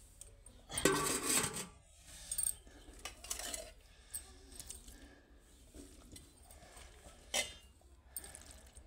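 Steel kitchen utensils clattering and clinking: a long clatter about a second in, a shorter one a couple of seconds later, and a sharp single clink near the end, with quieter handling in between.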